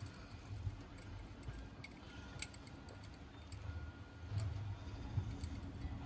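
Scattered light metallic clicks of a ratchet wrench loosening the half-inch terminal nuts on a starter solenoid, coming irregularly rather than as a steady run.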